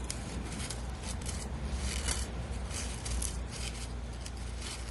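Scissors snipping through crepe paper in a run of short, irregular cuts, a few a second, as a small leaf shape is cut out.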